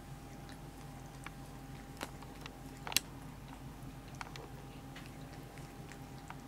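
Tabby kitten gnawing and chewing on a person's finger: small wet mouth clicks and smacks scattered through, with one sharper click about three seconds in, over a steady low hum.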